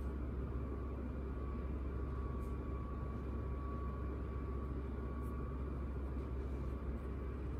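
Steady low mechanical hum with a faint, thin, steady whine above it, unchanging throughout.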